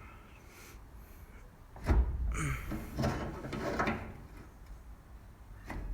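A sharp clunk about two seconds in, then a couple of seconds of metallic clattering and scraping and a smaller click near the end: a garage door torsion spring being wound round on its shaft.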